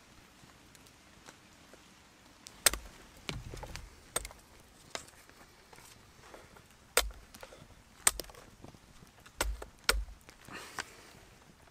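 Wooden rods being split with a blade on a wooden block to make thatching spars (scallops): sharp knocks, about seven of them, starting a couple of seconds in, some followed by a short crackle of splitting wood.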